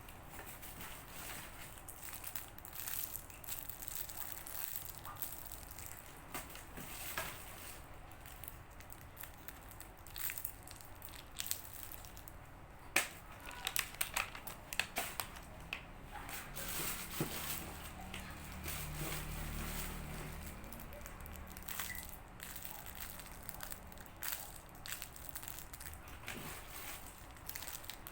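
Soft foam squishy toys being squeezed and handled, with an irregular soft crinkling and crackling and a few sharper clicks about halfway through.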